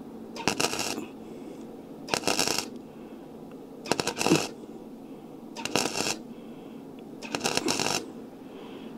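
Flux-core (gasless) MIG welder laying five short spot welds on thin 0.8 mm steel sheet: each a half-second burst of crackling arc, about one every second and a half. At this 43-amp setting the heat is just barely enough.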